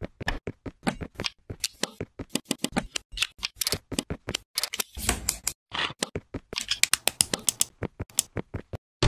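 Rapid run of small plastic clicks and snaps of Lego bricks and Technic beams being pressed together, several a second, with a brief gap about five and a half seconds in.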